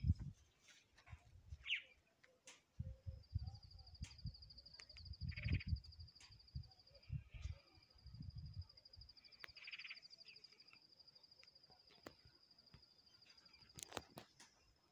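An insect trilling steadily at a high pitch, starting about three seconds in and breaking off briefly a couple of times, with a few short animal calls and intermittent low rumble.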